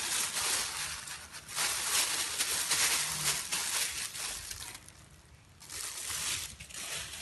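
Thin plastic food-handling gloves crinkling and dry breadcrumbs rustling as gloved hands roll a filled glutinous-rice (uli) log in a bowl of breadcrumbs to coat it. The rustling stops for about a second a little past halfway.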